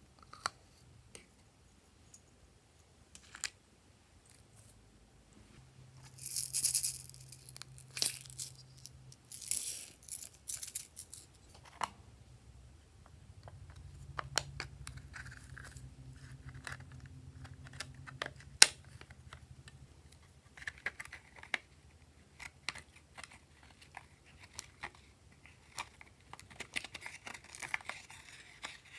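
Hands handling a small plastic toy makeup case: scattered sharp plastic clicks and taps, with a short crinkly rustle about six seconds in and a quicker run of small clicks near the end.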